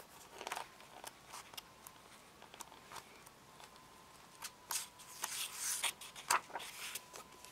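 Paper pages of a small storybook being turned by hand: scattered soft rustles and flicks of paper, a little busier in the second half.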